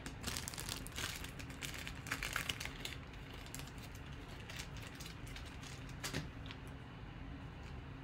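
Trading cards and clear plastic card holders being handled: rapid crinkling and clicking that is busiest in the first three seconds, then a few scattered clicks.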